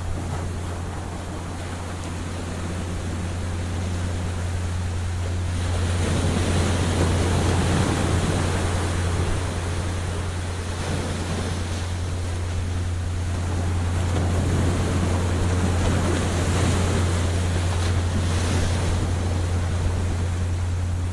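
Ocean surf breaking on a beach, swelling louder about six seconds in and again past the middle, over a steady low hum.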